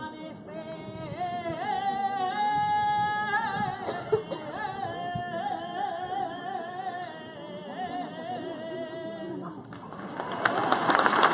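A saeta: one voice sung without accompaniment, in a flamenco style, with long held notes and wavering ornaments. It ends about nine and a half seconds in, and applause breaks out right after.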